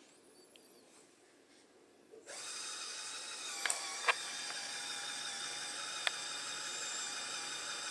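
LEGO Power Functions electric motor driving a geared winch, starting up about two seconds in with a steady whirring gear whine as it reels in chain and pulls a LEGO car up the loading ramps. There are a few sharp clicks during the pull.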